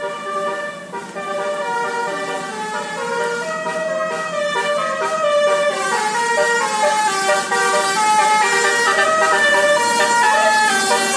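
Basuri musical air horn on a medium bus playing a melody: a run of short, stepping notes sounded together in several pitches, like a chord on a reed organ.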